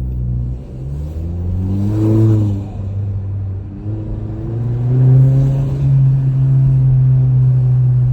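Mk7 Volkswagen Jetta's turbocharged engine, fitted with an aftermarket intake, accelerating hard through the gears. The engine pitch rises, drops back at a shift a little past two seconds in, rises again, then holds steady. A short intake whoosh comes at the top of each pull.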